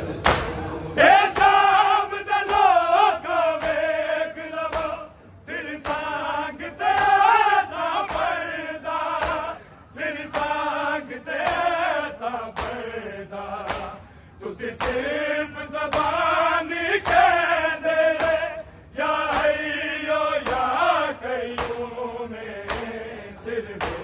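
Group of men chanting a Punjabi noha in unison, in sung phrases with short breaths between them, over a steady beat of matam: open hands striking chests in time.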